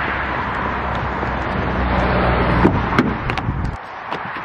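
Steady rushing noise with a low rumble from a car and wind outdoors, with a few sharp clicks about three seconds in; the noise then drops suddenly near the end.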